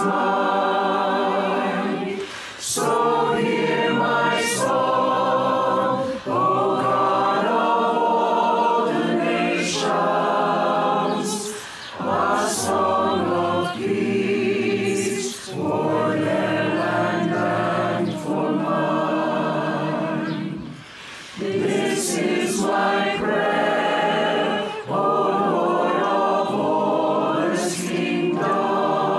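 A choir singing a hymn in sustained phrases a few seconds long, with brief breaks between them.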